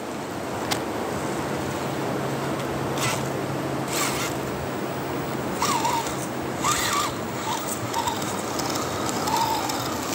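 Small electric RC rock crawler driving through shallow water over ice: a steady noisy churn of tyres in water, under a faint low motor hum that fades out about two-thirds of the way in, with a few short sharp bursts of splash or ice scraping.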